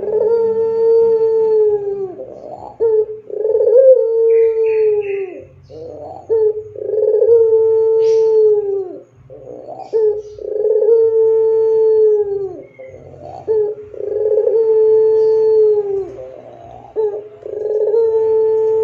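Caged white Barbary (ringneck) dove of the puter pelung type cooing: each call is a short clipped note followed by a long drawn-out coo held on one pitch that drops away at the end, repeated about every three and a half seconds, five times over.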